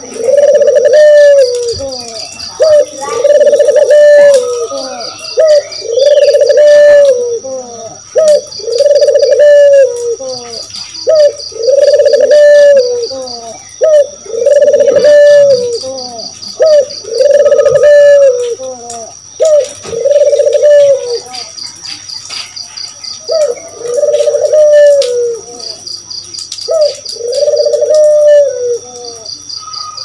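Caged Barbary doves (puter) cooing: a rolling coo phrase comes every couple of seconds, with a short pause about two-thirds of the way through. An insect, most likely a cricket, trills steadily underneath.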